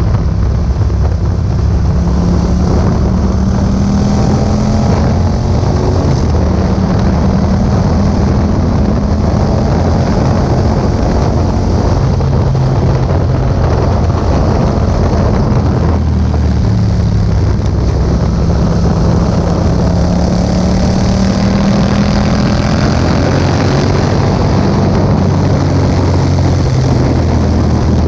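Yamaha MT-07's parallel-twin engine running through an Akrapovič exhaust under way, its note climbing slowly twice as the revs rise, with wind noise on the microphone.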